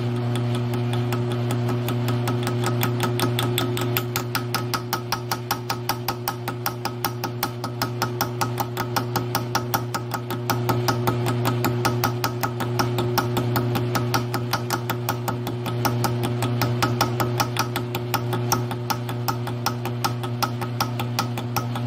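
Grizzly G1007 mill-drill running with a steady motor hum while its drill bit cuts into a small metal part held in the vise, making a rapid, even ticking chatter.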